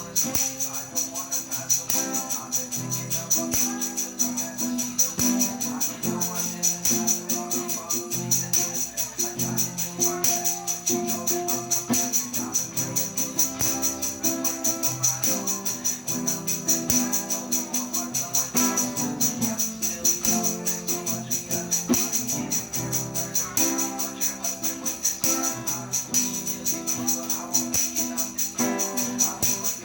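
Acoustic guitar played in chords with shaken hand percussion keeping a steady, fast beat.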